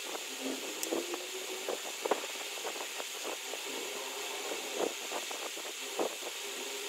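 Soft sipping of tea and chewing of roti, with many small clicks and smacks over a steady background hiss.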